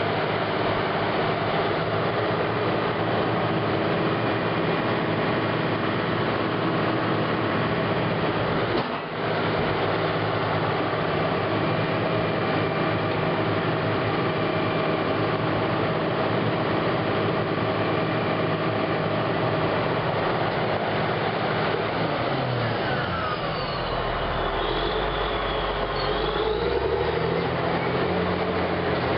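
Caterpillar D8R bulldozer's diesel engine running steadily. There is a brief break about nine seconds in, and the engine speed shifts near the end, its pitch falling and then rising.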